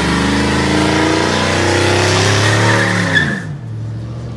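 Pickup truck doing a burnout: the engine is held at high revs while a rear tyre spins and squeals on the pavement. About three seconds in the revs drop and the squeal stops, leaving the engine running lower.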